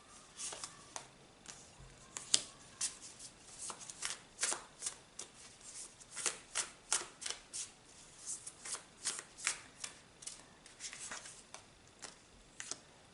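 A deck of tarot cards being shuffled by hand: an irregular run of crisp card snaps and swishes, two or three a second.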